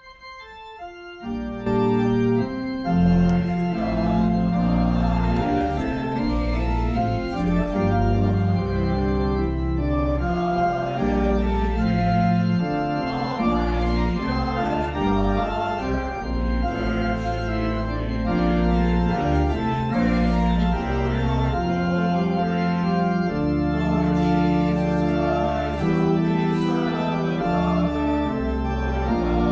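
Organ music: sustained chords held without fading over a moving bass line, swelling in about a second in.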